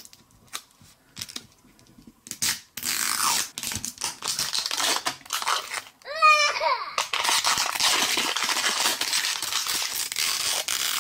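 Thin plastic shrink-wrap film crinkling and tearing as it is peeled off a plastic capsule ball by hand. After a quiet start with a few light clicks, it runs dense and continuous from about two seconds in, with a brief squeak about six seconds in.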